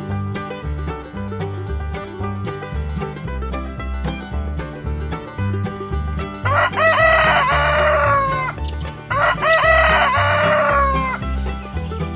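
A rooster crows twice, each crow about two seconds long, over a steady background music track. Before the crows, during the first half, a high, fast-pulsing chirp like a cricket sounds.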